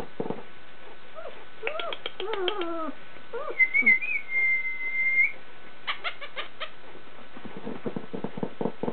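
German Shepherd puppies whimpering and yelping in short, falling cries. In the middle comes one steady high whistled note lasting about a second and a half, with clicks and light pattering around it.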